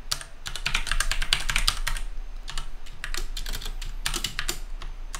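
Typing on a computer keyboard: runs of rapid keystrokes separated by short pauses.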